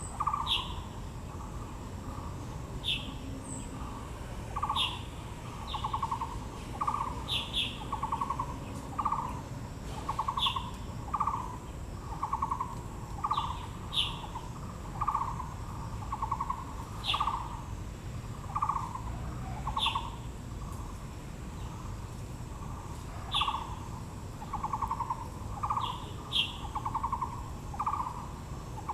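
Birds calling: one bird repeats a low, rough note over and over, roughly once or twice a second, while another gives short, higher falling notes every second or two.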